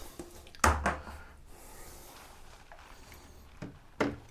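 Handling sounds: one dull knock of something being set down or moved about two-thirds of a second in, then two small clicks near the end.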